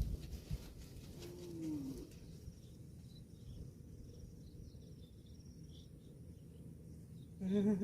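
Faint bird chirps over steady low outdoor background noise. There is a short call falling in pitch about a second and a half in, and a louder wavering animal call near the end.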